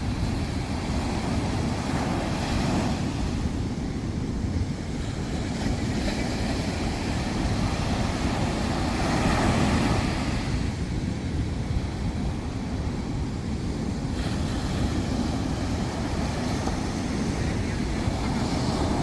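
Sea waves washing onto a sandy beach, surging up about every six seconds with the strongest surge about halfway through, under a constant low rumble of wind buffeting the microphone.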